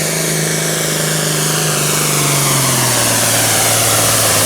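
John Deere Super Farm pulling tractor's turbocharged diesel engine at full throttle under load, pulling the sled; about two to three seconds in its pitch sags and holds lower as the sled's weight bogs the engine down.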